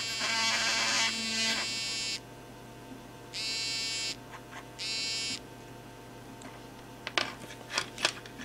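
Senbono G8 smartwatch's vibration motor buzzing in its massager mode, in three pulses: a long one of about two seconds, then two shorter ones of about a second each. A few light clicks from the watch being handled follow near the end.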